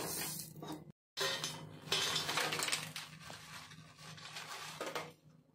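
Dry-roasted whole red chillies being tipped from a steel kadhai onto a steel plate: a crisp rustle of the dried chillies sliding out, with clinks and scrapes of steel on steel, fading out near the end.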